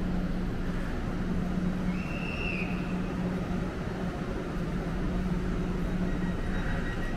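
Train running at a station: a steady low rumble with an on-and-off hum, and a brief high squeal about two seconds in.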